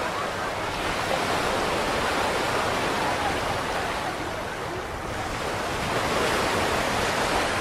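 Surf washing up on a sandy beach: a steady rush of small waves that eases a little about five seconds in, then swells again.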